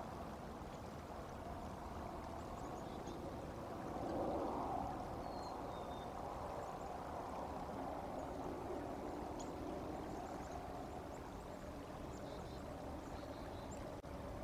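Steady outdoor background noise, swelling briefly about four seconds in, with a few faint, short high chirps scattered through it.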